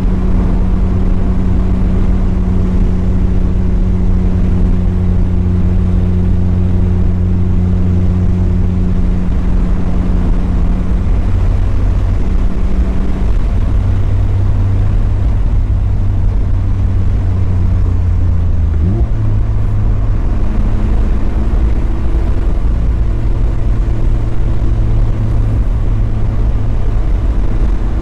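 Mazda Miata's four-cylinder engine running at a steady drone over road and tyre noise while driving. The engine note shifts pitch twice, jumping up with a short rising glide about two-thirds of the way through.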